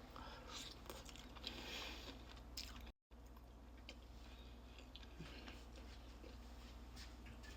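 Faint close-up chewing and crunching of crispy fried chicken, busiest in the first few seconds; the sound drops out completely for a moment about three seconds in.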